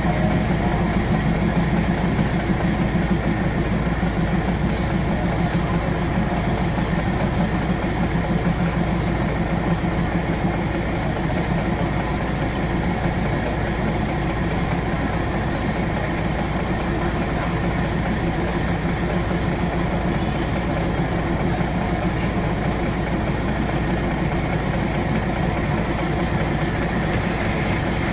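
Diesel train engine running steadily, a low even hum, while the train moves slowly along a station platform.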